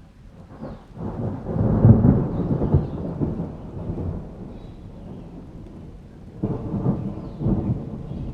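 Thunder rumbling in a summer thunderstorm with rain: a long roll building about a second in, loudest around two seconds in and fading away, then a second, shorter rumble near the end.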